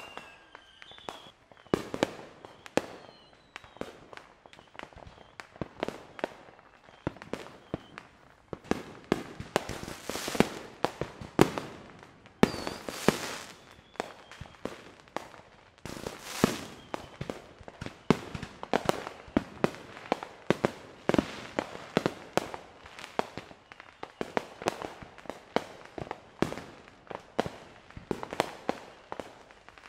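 Fireworks display: aerial shells launching and bursting in a fast, irregular series of bangs and pops, with a few longer hissing stretches among them.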